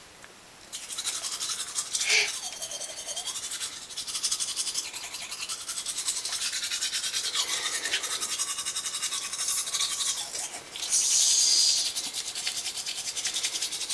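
Toothbrush bristles scrubbing fast against a toddler's teeth, a continuous scratchy rasp, with the toddler's own vocal sound effects mixed in. A louder hiss comes about eleven seconds in.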